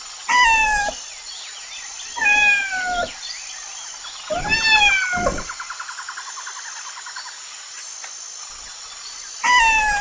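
Cat meowing: four separate calls, each sliding down in pitch. After the third call a fast trill runs for about two seconds.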